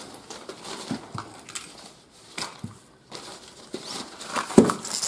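Nylon stuff sack rustling and crinkling as small fishing gear is pushed into it and it is drawn shut, with scattered light clicks of the gear and one sharper knock about four and a half seconds in.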